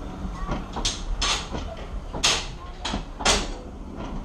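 Railway passenger coaches rolling slowly past, their wheels clacking sharply over rail joints about five times over a low steady rumble.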